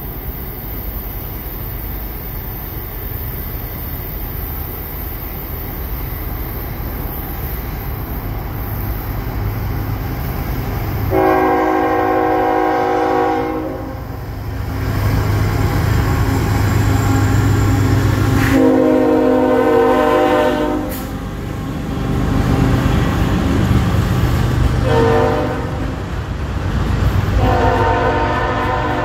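CSX diesel freight locomotive approaching with its engine rumble building, then sounding its air horn in four blasts, long, long, short, long: the standard grade-crossing signal. The locomotive passes between the blasts and the freight cars roll by near the end.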